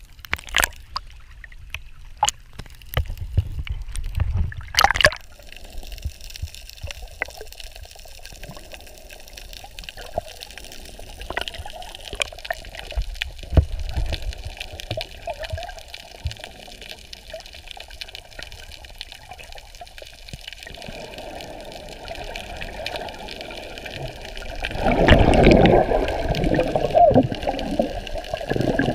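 Seawater sloshing and gurgling around a camera held at the water's surface as it dips in and out. There are sharp splashes in the first few seconds and a louder rush of gurgling water about 25 seconds in.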